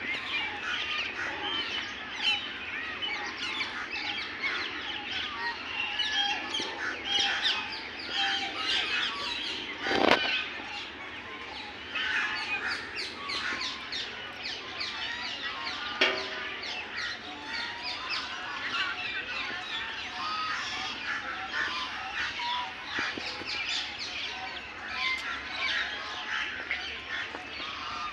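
A flock of domestic geese honking and calling continuously, many short calls overlapping. There is a sharp knock about ten seconds in and a smaller one a few seconds later.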